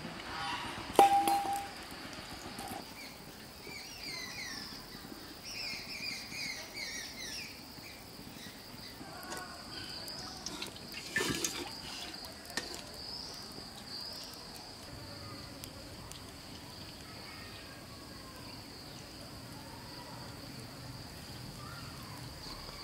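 Outdoor insect drone: crickets chirring steadily at a high pitch, with birds chirping a few seconds in. Two sharp knocks stand out, the louder about a second in, another about halfway through.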